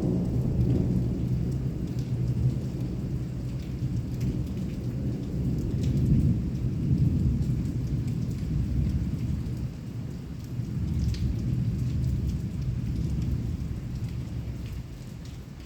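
Heavy rain pouring, with long rolling thunder that swells and eases throughout and dies down near the end. Scattered raindrops tick over the steady rain.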